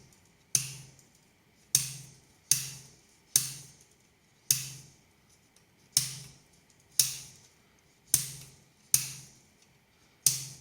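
Cutters snipping the excess pins on a freshly soldered circuit board: about ten sharp snaps, roughly one a second, each ringing out briefly.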